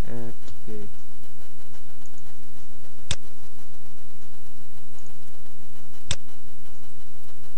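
Two sharp computer mouse clicks about three seconds apart, over a steady low hum.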